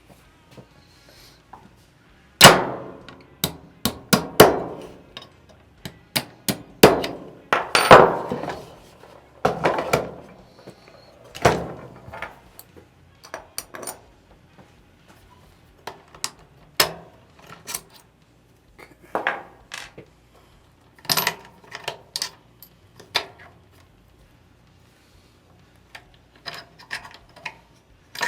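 Irregular sharp metallic clinks and clangs with short ringing: the trigger and hammer pins are being worked out of an AR-style lower receiver and the factory trigger group lifted out. The impacts come thick and loud in the first half and grow sparser later, with a short lull near the end.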